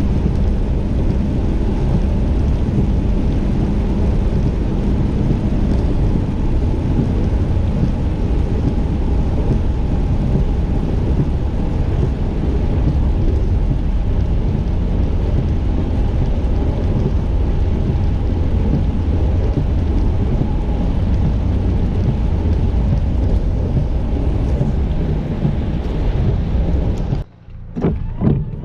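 Rain falling with a loud, steady low rumble. It cuts off abruptly about 27 seconds in, followed by a few knocks.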